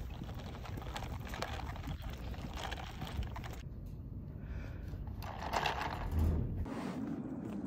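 Footsteps and the rustle of a hand-held phone while walking on a pavement, with steady outdoor background noise. It cuts off abruptly a little over three seconds in to a quieter indoor ambience, with a brief louder rustle about two seconds later.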